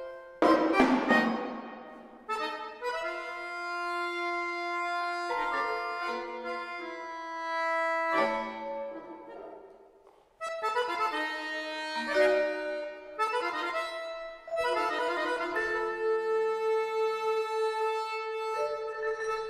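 Piano accordion playing long held chords that start and break off sharply, in a contemporary classical piece. A single loud percussion stroke rings out about half a second in, and near the middle the sound drops almost to silence for a moment before the chords come back.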